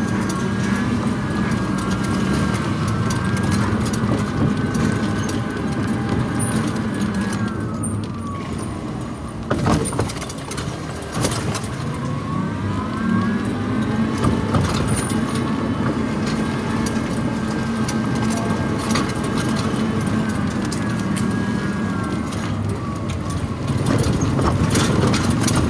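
Electric golf cart travelling: its motor's whine drops in pitch about a third of the way in, rises again around the middle, and falls once more near the end, over steady tyre and road noise. A few knocks sound near the middle.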